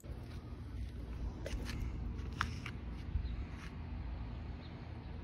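Outdoor ambience with a steady low rumble of wind on a phone microphone and a few faint short ticks.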